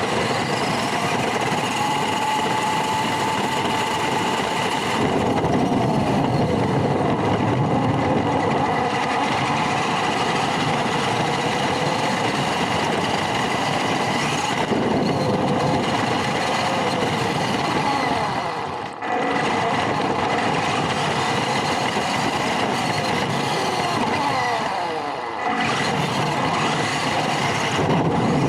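Small electric motor and gears of a radio-controlled pickup truck running as it drives, heard from a camera riding on the car, with a steady whine that shifts in pitch with speed. It drops off briefly twice, about 19 and 25 seconds in.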